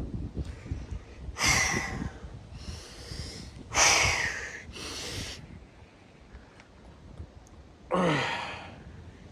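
A man breathing hard and forcefully while straining through resistance-band reps: about five loud, gusty exhalations, a lull of a couple of seconds, then a last breath that ends in a voiced sigh falling in pitch.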